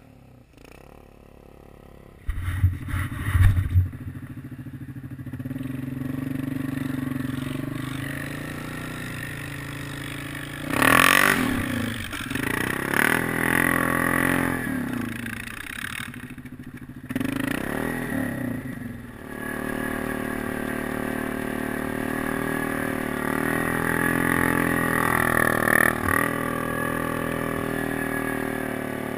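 Quad's engine revving and running under load through deep snow, with a hard burst of throttle about eleven seconds in and steadier running in the last third. A few heavy low thumps come about two to four seconds in.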